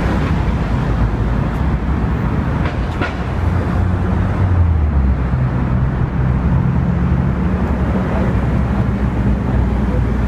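Low, steady rumble of a heavy vehicle engine, growing a little louder about four seconds in.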